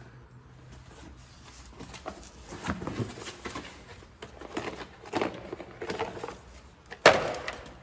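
Handling noise from a portable jump starter kit being got out and handled: scattered clicks and rustling, with one sharp knock about seven seconds in.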